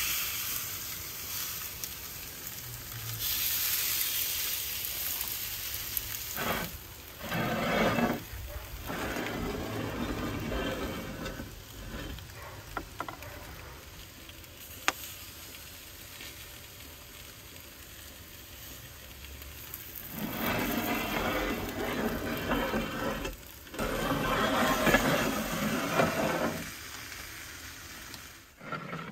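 Whole branzino sizzling on a hot cast-iron griddle, in several stretches of sizzling with quieter gaps between, and one sharp click about halfway through.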